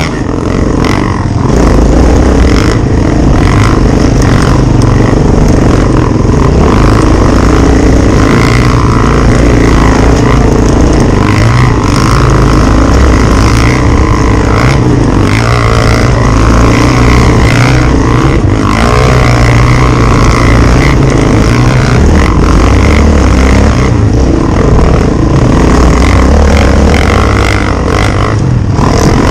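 An engine running steadily and loudly, with a constant low hum.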